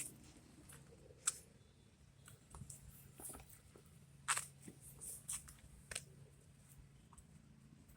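Scattered light metallic clicks and knocks as a new front brake rotor is handled and fitted onto the wheel hub, the loudest about four seconds in, over a faint steady low hum.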